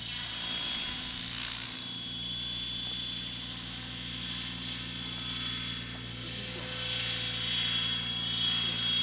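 Align T-Rex 800 radio-controlled helicopter flying: a steady rotor hum with a high motor whine over it, growing a little louder in the second half.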